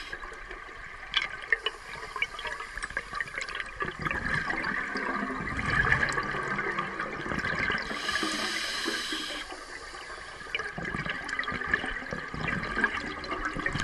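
Scuba diver breathing through a regulator underwater: bubbling exhalations about four seconds in and again near the end, with a hissing inhalation between them. Scattered small clicks run under it.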